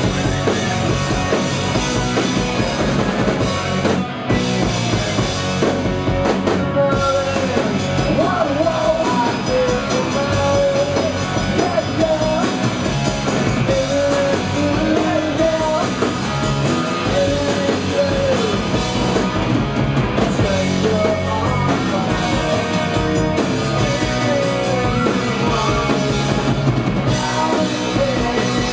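A glam-punk rock band playing live: electric guitars, bass guitar and drum kit, with a man singing over them.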